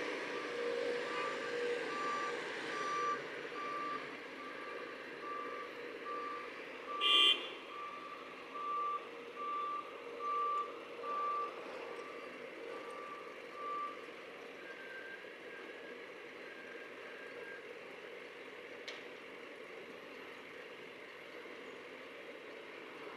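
Reversing alarm on a heavy construction vehicle, a single-pitch beep repeating a little faster than once a second, stopping about fourteen seconds in, over the steady noise of machinery. A short loud sound cuts in about seven seconds in.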